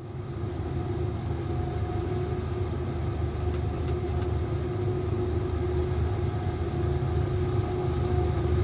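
CSX loaded coal train's diesel locomotives running, a steady low rumble with a held hum that builds over the first couple of seconds and then holds.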